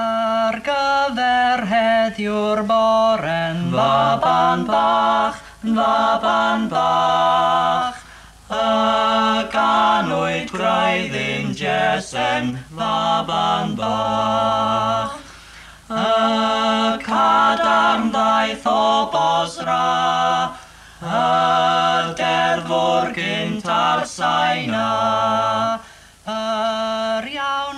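Three men singing a Welsh hymn unaccompanied in close harmony, in long held phrases with short pauses for breath between them.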